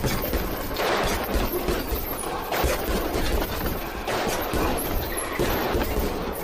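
Rapid flurry of boxing-glove punches landing on a heavy bag: a dense, unbroken run of smacks and thuds.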